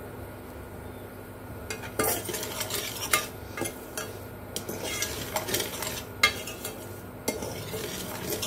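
A spoon scraping and clinking in a heavy tea pot, stirring dry sugar, tea leaves and lemongrass as the pot heats. The strokes are irregular and start about two seconds in.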